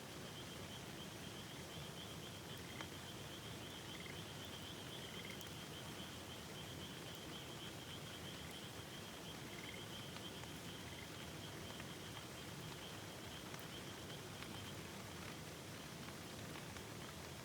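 Frogs calling over the steady rush of a river: a high pulsing trill that stops about fourteen seconds in, and a few short rising chirps scattered through.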